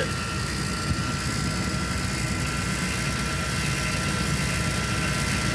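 Refrigeration vacuum pump running steadily while valved off from a freezer system under evacuation, holding it at deep vacuum.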